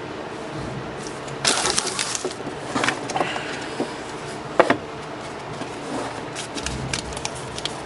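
Trading cards and foil card packs being handled on a table: rustling and crinkling in a few short spells, with a sharp tap a little past halfway.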